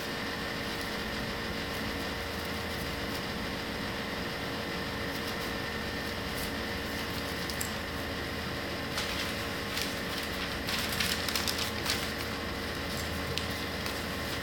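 Steady background hum with paper handling: crisp rustling and crinkling of craft paper about nine to twelve seconds in.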